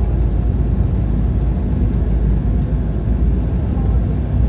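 Steady cabin rumble of an Embraer 195 jet on final approach for landing: the noise of its turbofan engines and the airflow, heard from inside the cabin, deep and unbroken.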